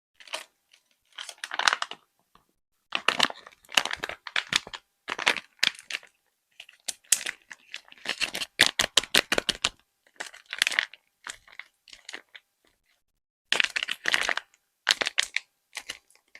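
A handmade tape-and-paper squishy (taba squishy) being squeezed again and again, crinkling and crackling in bursts of a second or so with short silent gaps between. A run of quick crackles comes about halfway through.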